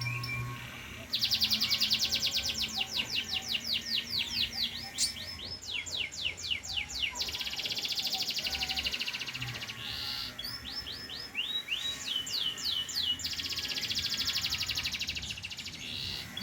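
Domestic canary singing a long, fast song of rapid trills, quick sweeping notes and buzzy rolls, with only short breaks between phrases.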